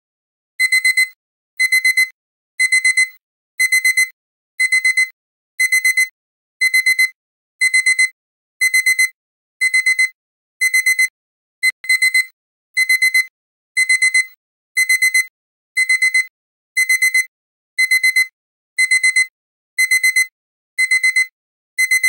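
Digital alarm-clock beeping: starting about half a second in, short bursts of quick, high-pitched beeps repeat about once a second, signalling that the countdown has run out.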